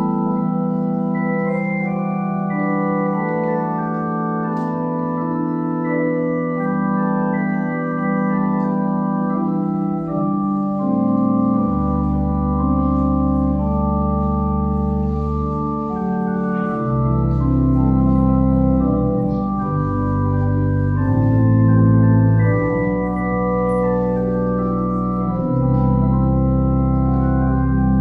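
Organ playing slow, held chords that shift from one to the next, with deep bass notes joining about eleven seconds in.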